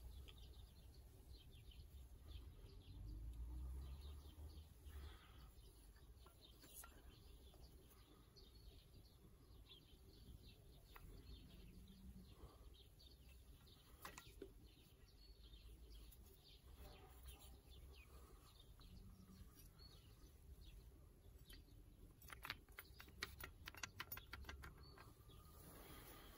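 Near silence, with faint scattered clicks and taps from handling a rusty old hand drill on a wooden bench, and a quick run of small clicks near the end.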